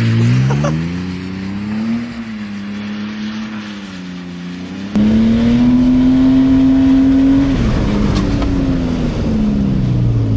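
BMW E46's engine revving under drifting, its pitch climbing and dropping. About halfway through it turns abruptly louder and holds steady at high revs for a couple of seconds, then the revs fall away.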